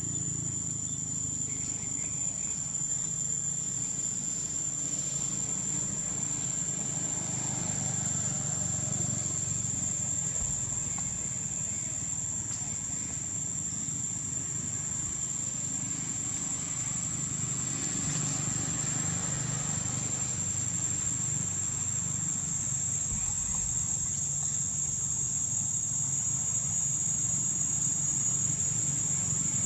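Steady high-pitched drone of insects, with a low steady hum underneath.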